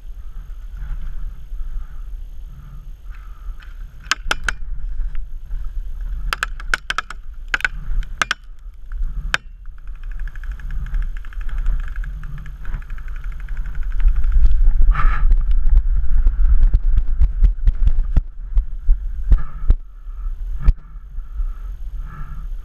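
Paintball gunfire: sharp pops, some single and some in quick strings of several, over a low rumble that grows loudest about two-thirds of the way through.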